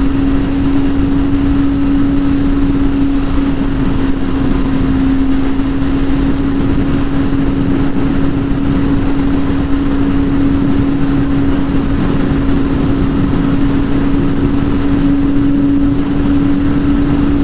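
Kawasaki ZX-25R inline-four with a Yoshimura R77 exhaust, held at a steady high engine speed while the bike cruises. It gives one even hum that does not rise or fall, over a steady rush of wind and road noise.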